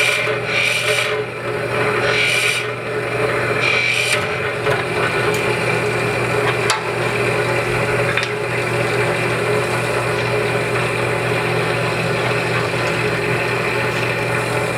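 Electric motor of a horizontal boring machine humming steadily. In the first four seconds, about four short rasping bursts as the spinning bit is pushed into the end grain of a wooden workpiece. After that, only the motor hum, with a single click about seven seconds in.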